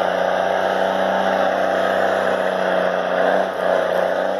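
Loaded logging truck's engine running steadily at an even pitch.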